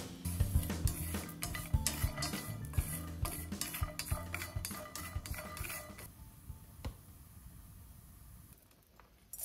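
Walnut pieces clicking and tapping against a dry iron frying pan as they are dry-roasted: many quick ticks for about six seconds, then only a single one near the end.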